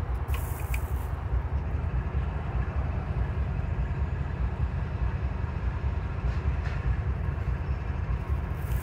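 Diesel freight locomotives running, a steady low rumble.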